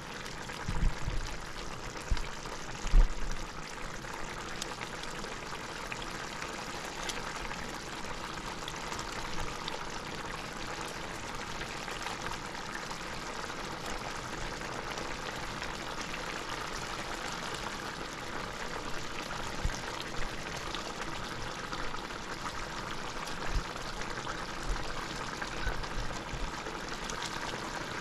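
A pot of curry simmering, with a steady bubbling hiss. A few low bumps come about one and three seconds in, the loudest near three seconds.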